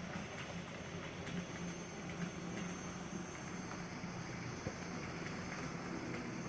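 N scale model train running along the layout track: a steady low hum with faint, irregular clicks of the wheels on the rails.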